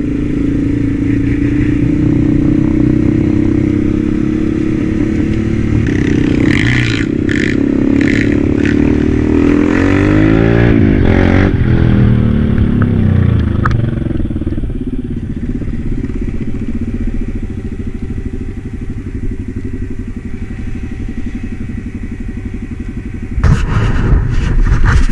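ATV engine running under way on a dirt trail, heard from the rider's seat. A dirt bike's engine passes close around the middle, its pitch rising and then falling. The running settles lower and steadier after that, with a louder burst of engine noise near the end.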